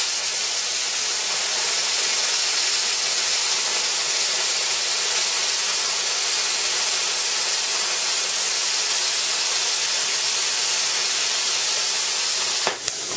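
A 40-amp plasma cutter's arc and air jet hissing steadily as the torch cuts through 5 mm steel flat bar. The hiss cuts off sharply near the end as the cut finishes and the arc stops.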